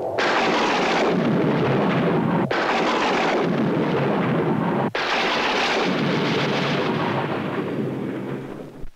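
Thunder rumbling loudly and steadily, broken by two brief dropouts about two and a half and five seconds in, then fading away near the end.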